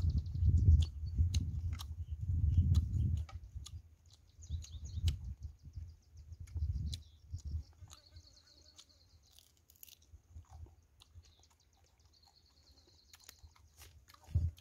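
A person chewing and crunching crispy fried field mouse, with sharp crunches and loud chewing over the first few seconds that then grow quieter. Faint high chirping runs in the background.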